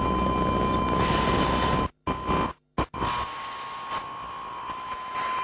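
A-10's 30mm GAU-8 cannon firing a burst of about two seconds on a strafing run, a dense low buzz that stops sharply, with a steady high-pitched tone on the cockpit audio. The audio then cuts out twice briefly and falls to a quieter hiss.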